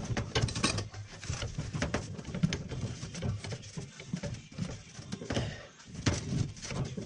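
Scattered small clicks, scrapes and rustles of hand work on a metal fitting: a CSST flexible gas line's nut being hand-threaded onto a gas valve fitting, with clothing and hose handling noise.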